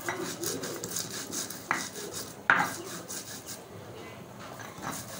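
Stone rolling pin (lohoro) scraping back and forth over a flat grinding stone (silauto), crushing a wet, grainy paste, in repeated rough strokes. There are a couple of sharp stone knocks, the loudest about two and a half seconds in.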